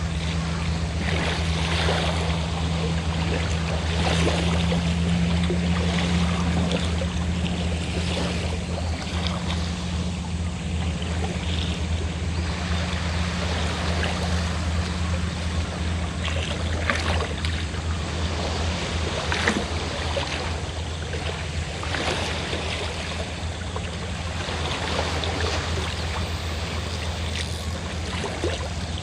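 A fishing boat's engine running with a steady low hum, under waves washing and splashing on the shore.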